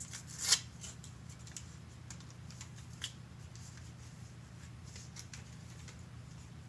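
Paper packet of Bakugan trading cards being opened and handled by hand: a short loud rustle about half a second in, then light scattered paper rustles and ticks over a steady low hum.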